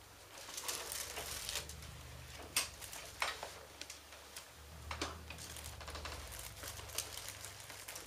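Rustling of clothing against a padded treatment table as a person shifts onto her side, with a few sharp clicks and knocks, over a low steady hum.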